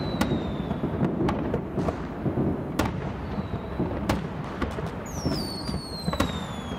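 Fireworks going off: a string of sharp bangs over a continuous low rumble, with thin whistles that fall in pitch, the clearest about five seconds in.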